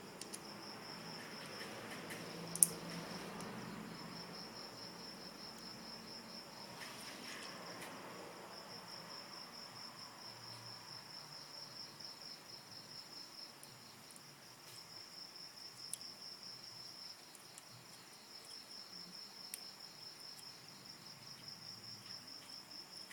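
A cricket chirping in a steady, fast-pulsed trill, with a few sharp clicks over it, the loudest about two and a half seconds in.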